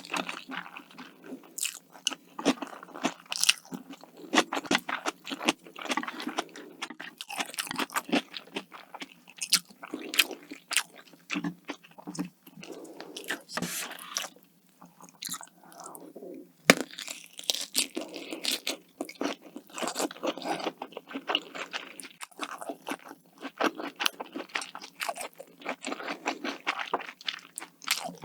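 Close-miked eating: crunchy bites and chewing, a dense run of crisp, irregular crackles and clicks.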